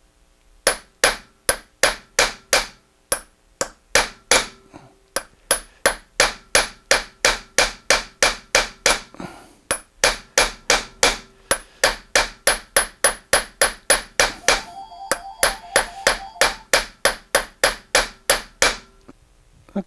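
Hammer blows on a steel punch driving brass rod into a 4140 steel forming die, cold-forming the head of a small brass rivet. The blows are steady, about two and a half a second, each ringing sharply, with a brief pause about halfway, and they stop just before the end.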